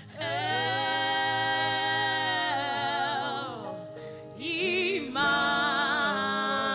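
Slow gospel worship song: a solo voice holds long sung notes with vibrato over a sustained keyboard accompaniment, dipping briefly about four seconds in before the next phrase begins.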